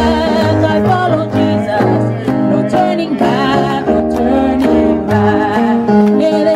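Gospel worship music: a voice sings held, wavering notes over instrumental accompaniment with a steady bass line.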